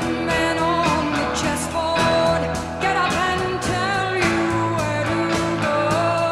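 Rock song: a sung melody over a band with bass and a steady drum beat.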